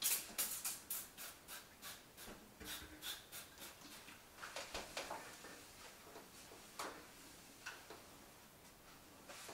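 Faint strokes of a cloth rubbing and scraping across the top of a refrigerator, quick and regular at first, about three a second, then slower and more scattered.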